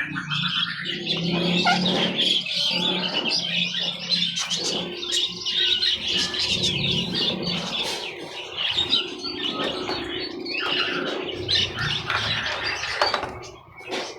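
Many small caged songbirds chirping and twittering together in a dense, busy chorus, with a low steady hum underneath in the first half; it quietens near the end.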